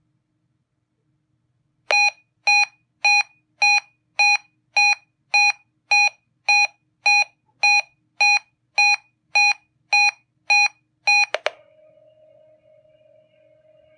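Reecom R-1630 weather alert radio sounding its alert for the EAS Required Weekly Test: short, high electronic beeps, evenly spaced at just under two a second, about seventeen of them, stopping abruptly. After the beeps a faint steady tone comes from the radio's speaker.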